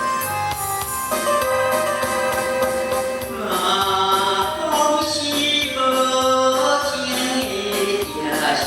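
Karaoke: a man singing over a backing track with a steady drum beat, played through a classroom sound system being tested.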